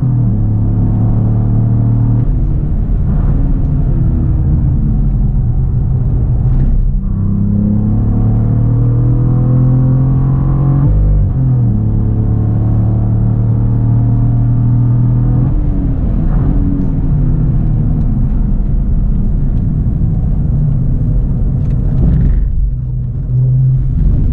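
Cadillac CT4-V Blackwing's twin-turbocharged V6 at full throttle on track, heard from inside the cabin. It upshifts into fourth right at the start and the revs climb, then hold. From about two-thirds of the way in the revs fall under braking, with quick breaks near the end as it downshifts to third for a corner.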